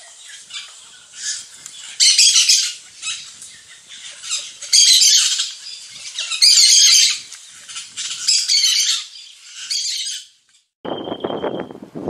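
A small songbird giving scratchy, chattering song phrases about every second or so, the loudest around two, five and six and a half seconds in. It stops shortly before the end, and a different, lower rustling sound with a brief thin whistle takes over.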